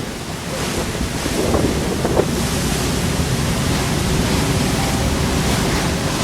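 Strong storm wind rushing and buffeting the microphone with a steady, loud noise.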